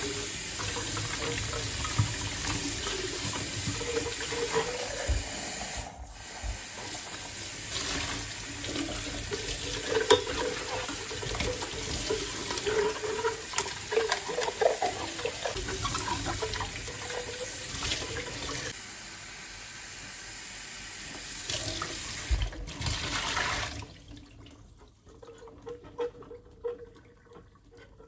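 Kitchen tap running into a sink with scattered knocks and clatter from things being handled under it. The flow dips briefly about six seconds in and shuts off about 24 seconds in, leaving a few light knocks.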